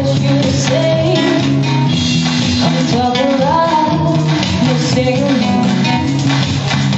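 Guitar trio playing: guitars holding chords under a melody line that slides between notes.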